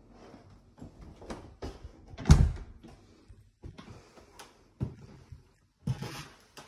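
Footsteps on bare wooden floorboards, a knock every half second or so, with one much louder thud a little over two seconds in.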